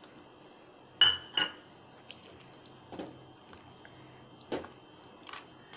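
A metal ladle knocking and scraping against a pan as thick wheat halwa is stirred: five or six separate clinks, the loudest about a second in.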